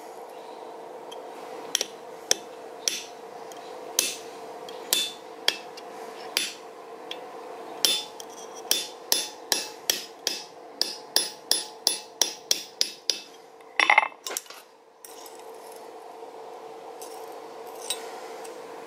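Hammer striking a curved chisel to cut the ears into a small forged steel mouse held in a hardy tool on the anvil: sharp metallic taps, about two a second, coming closer together before stopping about 13 s in. A brief ringing metal clink follows about a second later, over a steady hum.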